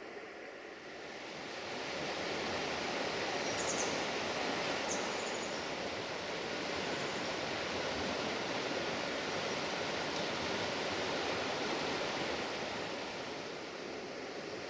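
Steady rushing outdoor ambient noise that swells about a second or two in, with two brief high chirps around four to five seconds in.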